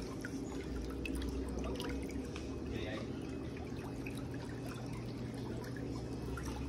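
Water pouring and trickling in the basins of white pedicure spa chairs under test, over a steady low machine hum.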